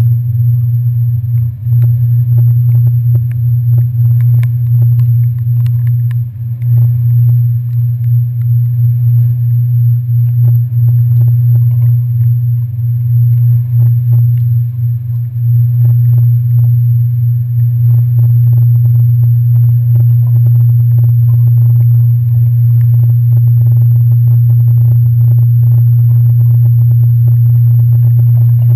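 Ferry engines droning: a loud, steady deep hum, with scattered light knocks and rattles over the first half.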